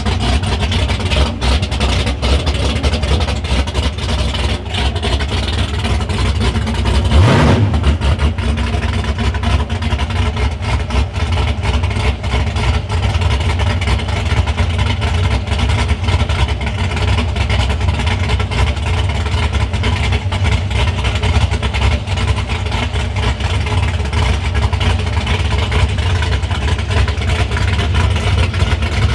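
2016 Mopar Drag Pak drag car's engine running at a lumpy, uneven idle, with one quick rev blip about seven seconds in.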